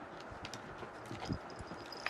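Scattered soft taps and light thumps, like small kittens moving about and playing, with a faint thin high ring starting just over a second in.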